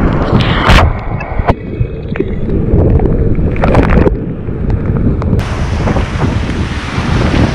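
Roar of a flooded whitewater river heard from a kayak running big rapids, with wind and spray buffeting the microphone. There is a loud splash just under a second in. The sound then turns muffled for a few seconds as the kayak ploughs through a breaking wave and water covers the microphone, and it opens up again near the end.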